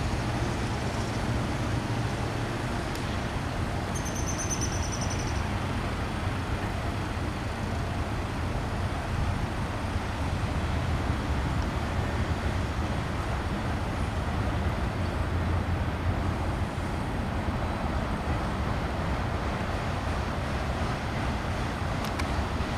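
Steady low rumble of a train on the tracks, holding an even level throughout, with a brief thin high-pitched tone about four seconds in.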